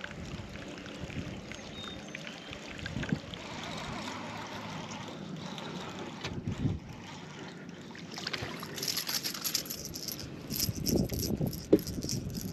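Water sounds around a small fishing boat with a few light knocks; in the last few seconds a run of brief splashy bursts.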